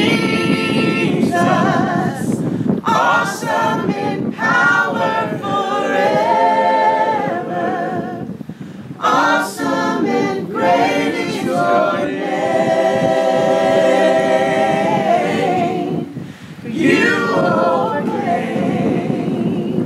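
A group of people singing a worship chorus together, unaccompanied, in long held notes, with two short breaks between lines.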